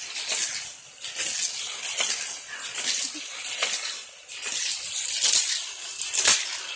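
Hot Wheels toy cars running around a plastic track set, a series of irregular clattering rushes about once a second, the loudest near the end.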